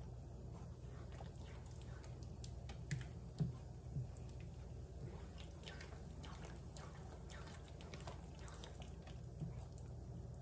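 Silicone spatula stirring a thick creamy chicken and mashed-potato mixture in a nonstick skillet: faint, irregular wet sounds and light scrapes.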